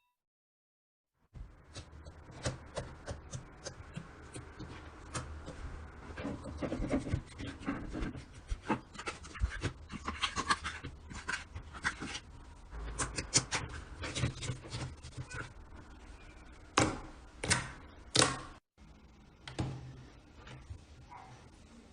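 Slime being squeezed and poked by hand, making a dense, irregular run of sticky clicks and air-bubble pops. It starts after about a second of silence and breaks off briefly near the end.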